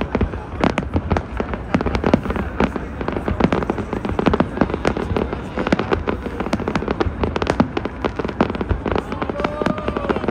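New Year's Eve fireworks going off without a break: a dense run of bangs and crackles, many a second, over a steady low rumble.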